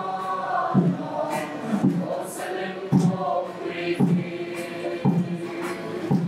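Children's choir with adult voices singing a slow hymn in Mizo together, over a steady low drumbeat about once a second.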